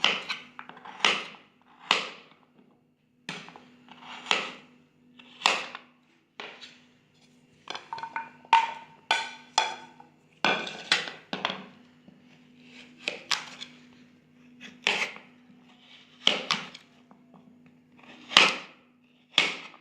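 Knife chopping through firm raw taro onto a cutting board: about twenty sharp knocks at an uneven pace, roughly one a second, over a faint steady low hum.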